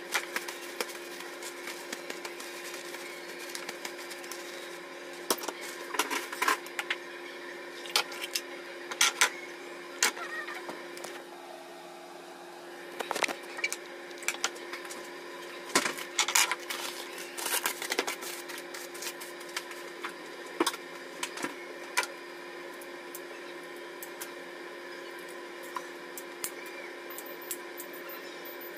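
Knocks, taps and clatter of a knife, a metal plate and kitchen scissors being handled on a wooden cutting board while a raw fish is prepared, over a steady mechanical hum. The knocks come in bunches and are quieter near the end.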